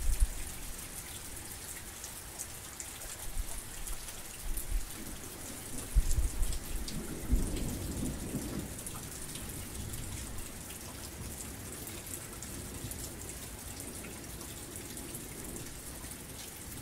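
Heavy rain falling steadily, a dense patter of drops, with a low rumble of thunder about six to nine seconds in.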